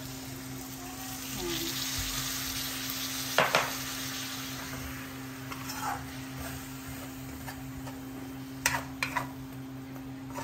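Pork broth poured into a hot wok of pork and shrimp paste, the wok sizzling, then a metal ladle stirring and scraping against the wok with several sharp clinks, a cluster of them near the end.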